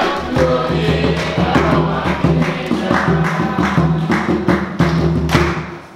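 Congregation singing a gospel chorus in Swahili, backed by a low bass line and drum beats; the music stops just before the end.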